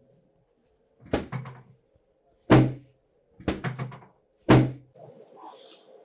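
Four dull thunks from a padded chiropractic table about a second apart, as the chiropractor gives quick thrusts to the lower back and hips of a patient lying face down.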